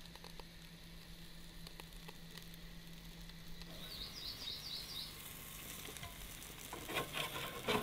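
Moose chorizo patties sizzling faintly on a small barbecue, with a short high bird trill about halfway and a few spatula clicks and scrapes near the end.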